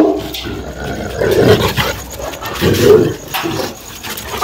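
Guard dog barking deeply and aggressively, a few loud barks about a second and a half apart.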